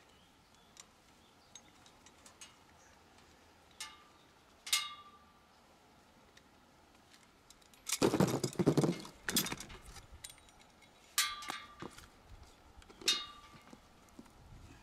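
Steel parts of a Smith machine clinking and clanking as they are handled during assembly: a few sharp metallic clinks, some with a short ring, and a burst of clattering about eight seconds in.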